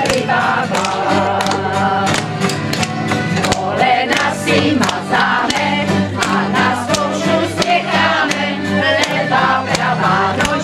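Group of women singing a folk-style song together in chorus, over instrumental backing with sustained low chords and a steady clicking beat.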